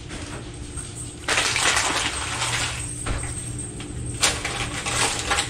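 Shrimp sizzling in hot butter and pork fat in a nonstick frying pan: a steady crackling hiss that gets louder about a second in, with a single knock near the end.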